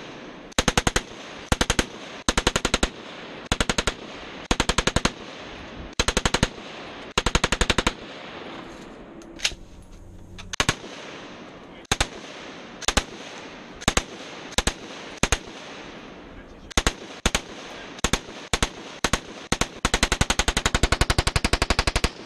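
Belt-fed machine gun on a bipod fired in short bursts of several rounds each, about one burst a second, with a lull about ten seconds in and a longer burst near the end.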